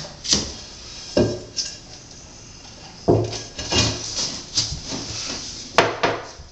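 Marble tile and tiling tools being handled: a string of irregular knocks, clinks and scrapes, with the sharpest knocks about three seconds in and again near the end.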